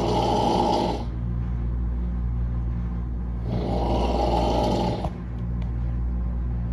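A man snoring in his sleep. There are two long snores about four seconds apart, one at the start and another about three and a half seconds in, over a steady low hum.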